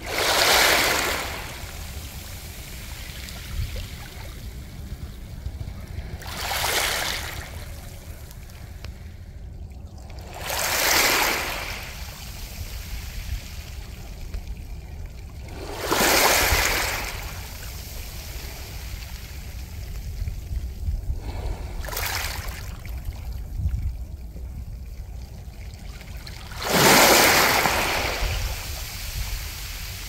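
Small waves washing up a beach of smooth round mongdol pebbles and drawing back, the pebbles rolling and clattering with each surge. About six surges come a few seconds apart, the loudest near the end, over a steady low rumble.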